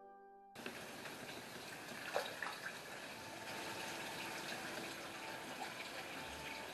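Koi pond water trickling and splashing, starting abruptly about half a second in as the music stops, with koi feeding at the surface; one sharper splash about two seconds in.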